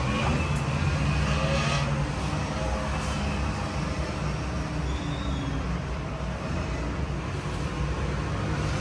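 Steady low background rumble, with faint voices in the first couple of seconds.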